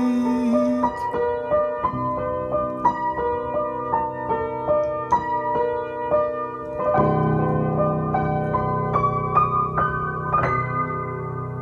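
Instrumental music played on a piano-voiced keyboard: a slow melody of single struck notes, each dying away, over held chord tones. A fuller, deeper chord comes in about seven seconds in, and the music fades toward the end.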